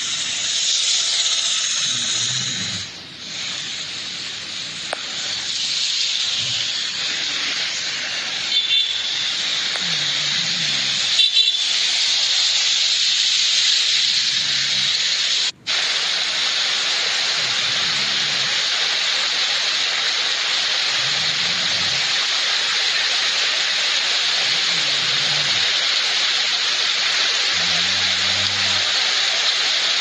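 Steady hiss of a waterfall in flood spate, with heavy water pouring and crashing onto rock, swollen by torrential rain. It breaks off for a moment about halfway through.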